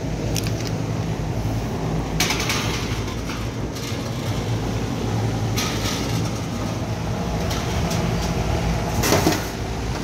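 Steady low hum of running rooftop HVAC package units, with a few short scrapes and clatters as a sheet-metal access panel is taken off a Carrier package unit.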